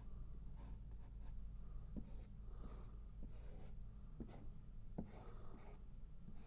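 Paintbrush scratching across a canvas in a series of short strokes.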